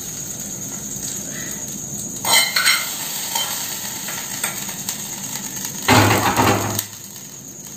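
Hot mustard-oil tempering being tipped and scraped out of a small metal pan into a glass bowl of chutney, sizzling as it hits. A spoon scrapes and clinks against the pan about two seconds in, and the pan is set back down on the steel gas stove with a clatter about six seconds in.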